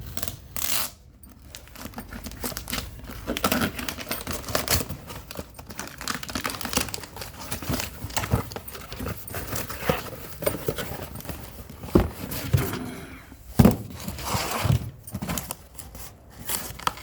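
Packaging of a new electric kettle being handled and opened: irregular crinkling and tearing with scattered clicks and knocks, two sharper knocks past the middle.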